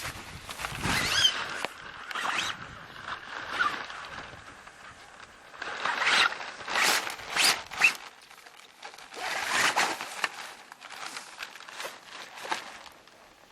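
Kayak sail kit being packed into its carry bag: irregular rustling and scraping of the bag and sail, with zipper pulls.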